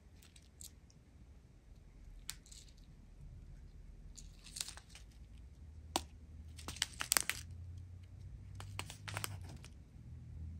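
Clear plastic bags of square diamond-painting drills crinkling as they are handled, in several short spells of crackling, the loudest about seven seconds in.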